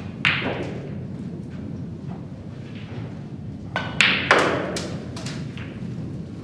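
Snooker balls clicking. The cue strikes the cue ball near the start. About four seconds in comes a loud cluster of sharp clicks as the cue ball hits the yellow and the yellow goes into the pocket.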